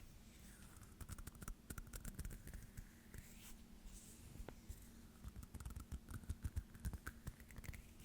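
Small ASMR hand sounds close to the microphone: quick, irregular fingertip and nail taps and scratches, mixed with soft rubbing swishes.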